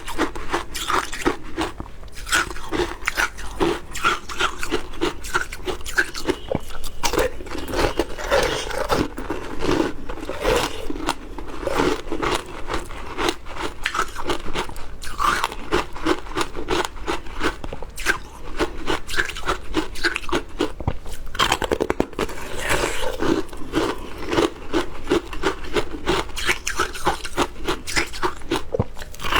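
Passion fruit shaved ice being bitten and chewed, a continuous run of crisp crunches and crackles.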